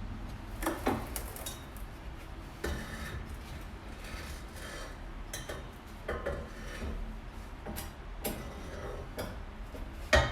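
Metal exhaust pipe sections and fittings clinking and scraping as they are handled and fitted under a car, with a sharper knock near the end.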